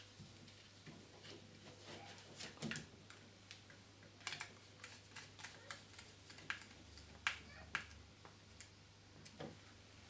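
Faint, irregular small clicks and taps from a screwdriver working the earth terminal screw of a plastic double wall socket and the copper earth wire being handled into it.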